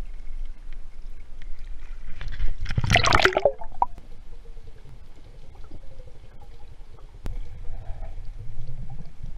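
Water splashing and gurgling as an action camera is plunged below a river's surface about three seconds in, followed by the muffled hush of the river heard underwater, with low rumbles and faint clicks.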